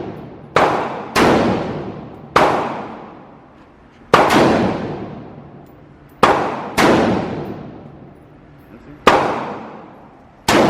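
Eight single gunshots fired at an uneven pace, each ringing out with a long echoing tail.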